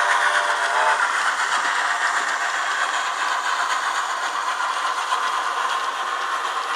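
Model steam locomotive running with DCC sound: a steam whistle that cuts off about a second in, then steady steam sound over the rattle of the locomotive's mechanism, which is still noisy even after lubrication.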